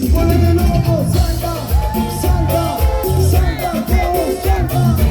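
A band playing Latin dance music, with a steady bass and drum beat under a lead melody line that holds one long note in the middle.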